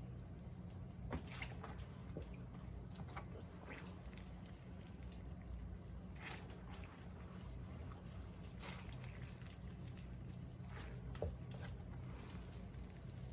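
Wet food handling: sliced oiji (salt-pickled cucumber) being worked in liquid, with scattered short wet clicks and drips. A steady low hum runs underneath.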